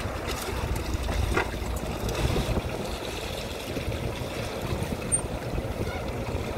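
Wind buffeting the microphone with a low rumble, over water splashing and lapping against the hull of a small boat; a faint click a little after five seconds in.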